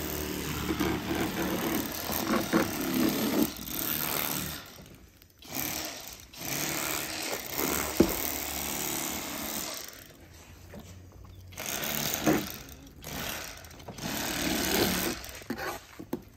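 Cordless electric Bubba Blade fillet knife running as it cuts through a perch. It buzzes in several bursts of a few seconds, stopping and starting between cuts.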